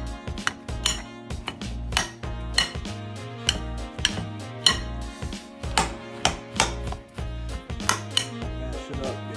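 Metal spoon knocking and scraping against a bowl of boiled potatoes as they are mashed by hand, a sharp clink every half second to second. Background music with a steady bass line plays underneath.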